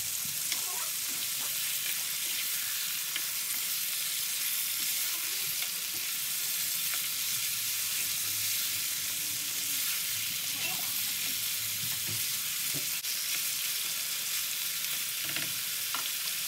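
Marinated chicken pieces sizzling in hot oil in a frying pan, a steady hiss, while being fried until the meat turns from pink to white. A spatula stirs the pieces partway through, with a few faint knocks against the pan.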